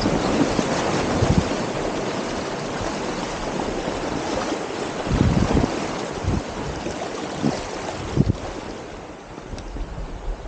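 Rushing creek water splashing around a packraft running down a rocky stream, with scattered low knocks. The rush eases somewhat near the end.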